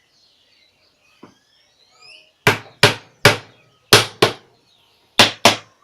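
Seven sharp hammer taps on a glued-up wooden frame, in a group of three and then two pairs, knocking the loosely clamped joints into alignment. Faint bird chirps come just before.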